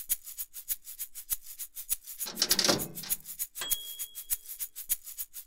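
Background music driven by a fast, even shaker rhythm, with a brief louder swell about halfway through.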